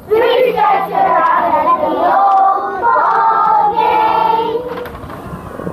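A group of young children singing together in unison without accompaniment, the voices breaking off near the end.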